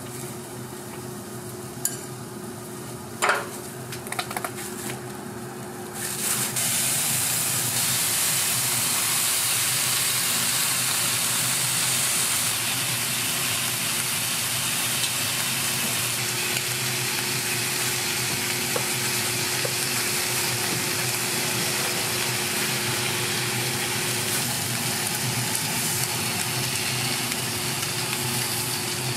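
Food frying on a hot griddle: a loud, even sizzle that starts suddenly about six seconds in and holds steady, with a couple of sharp clicks in the quieter stretch before it.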